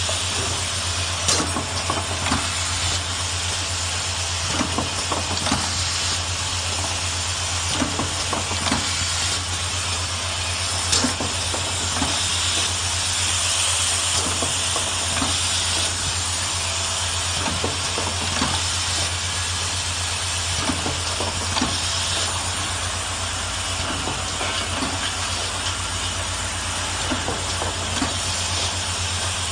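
Lipstick-cap assembly machine running: a steady low hum with a constant hiss, broken by frequent short, irregular clicks and clacks from its pneumatic cylinders and the plastic cap parts being fed and pressed together.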